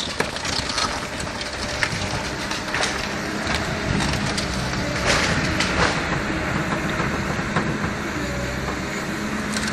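Caterpillar excavator's diesel engine running steadily under load as its arm rips apart a wood-frame house, with timber cracking and splintering and debris crashing down. Sharp cracks are scattered throughout, the loudest about five seconds in.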